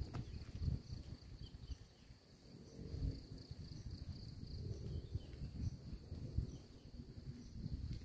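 Insects chirring in a steady, high-pitched trill, with gusty wind rumbling low and uneven underneath.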